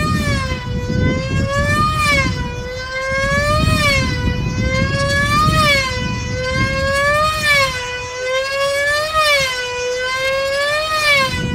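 Small high-revving two-stroke glow engine of a control line combat plane running flat out as it circles on its lines, its pitch rising and falling about every two seconds with each lap. The sound stops suddenly near the end.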